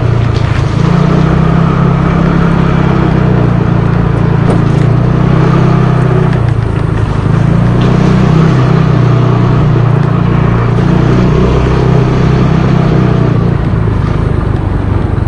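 Motor scooter engine running steadily while riding along at low speed.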